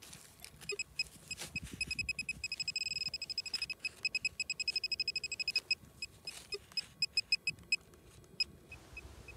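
Handheld metal-detecting pinpointer beeping as its tip is probed into a dug hole: rapid high beeps that quicken into an almost steady tone about three seconds in and again around five seconds, then slow and stop near the end. The faster beeping signals the probe closing on a buried metal target.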